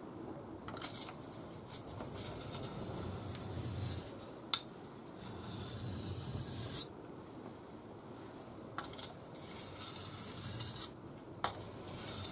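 Steel knife blade, a scandi-ground bevel, rubbed back and forth across a wet coarse DMT diamond sharpening plate: a gritty scraping in repeated strokes, with a short pause about seven seconds in. Two sharp ticks, one about halfway and one near the end. These are the first passes, to show how flat the bevel is.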